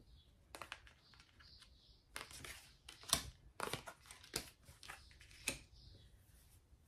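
Tarot cards being shuffled and handled: a string of short papery swishes and snapping clicks, irregularly spaced.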